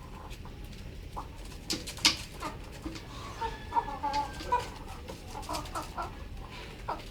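Chickens clucking in short, irregular calls, with a few sharp clicks, the loudest about two seconds in.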